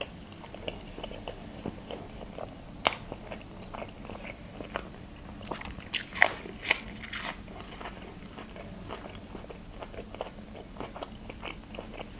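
Close-miked eating: soft chewing with small wet mouth clicks throughout. About halfway through comes a cluster of crisp, loud crunching bites into a stalk of fresh green onion.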